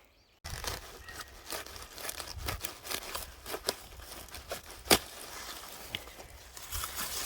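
Irregular rustling, crackling and tearing, with many small sharp snaps and one louder snap about five seconds in.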